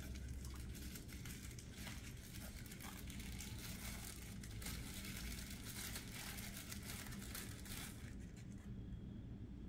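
Small wrapping crinkling and tearing as hands unwrap a padlock, a dense run of crackles that thins out about eight seconds in.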